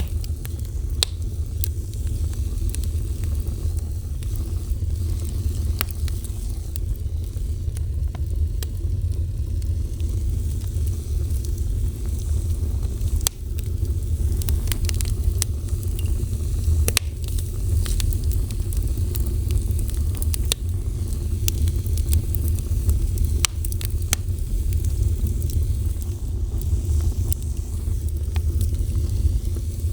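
A fire burning with a steady low rumble and scattered crackles and pops, which come thicker in the middle stretch.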